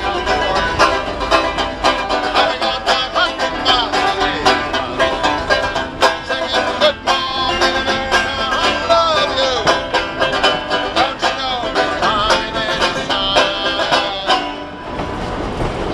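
Banjo picked in a fast, steady stream of notes while a man sings along. The playing stops near the end.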